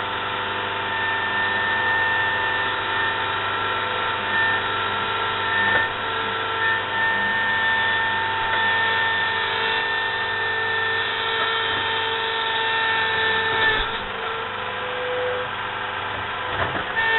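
Skid steer engine running under load while digging, with a steady high whine. The whine stops about 14 seconds in.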